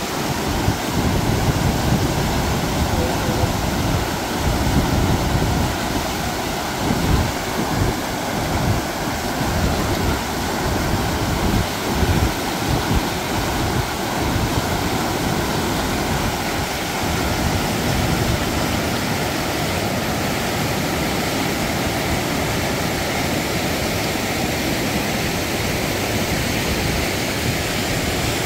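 Wind buffeting the microphone in uneven low gusts over a steady rushing hiss.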